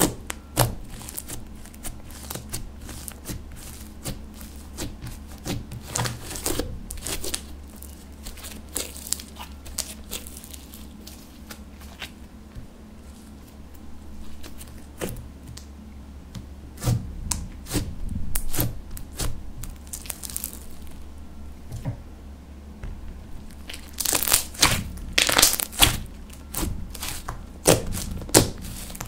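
Hands poking, stretching and kneading thick, glossy slime, making a run of sticky clicks and air-bubble pops, densest near the end.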